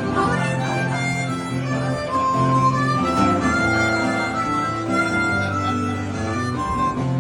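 Instrumental break in a live acoustic song: a harmonica plays a melody of held notes over acoustic guitar accompaniment.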